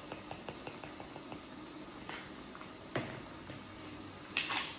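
Food cooking in an electric hot pot with a grill plate: a steady sizzle with many small crackling pops. A few light knocks from seasoning containers being handled come about two, three and four and a half seconds in.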